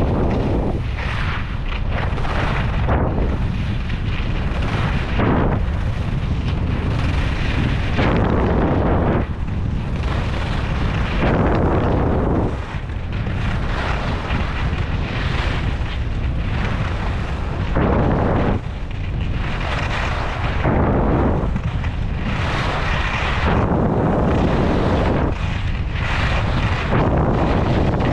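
Wind buffeting the action camera's microphone at skiing speed as a constant low rumble. Over it, skis scraping across packed snow give a rushing hiss that swells and fades every second or two with the turns.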